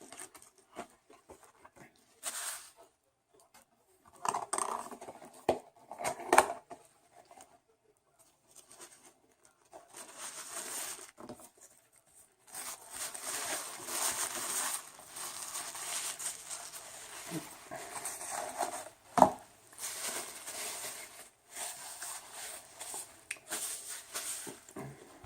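Paper food wrappers and packaging rustling and crinkling as they are handled, in scattered bits at first and then in a longer continuous spell through the second half.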